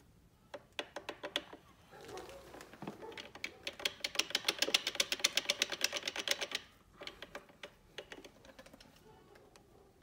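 Clutch plates in a 4L60E forward input drum rattling against the drum's splines as they are jiggled by hand to seat the pack. Scattered light metallic clicks, then a fast run of clicks, about a dozen a second, lasting some three seconds from about three seconds in, then scattered clicks again.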